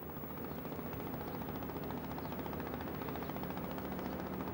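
A low engine drone running steadily, with a fast, even pulse.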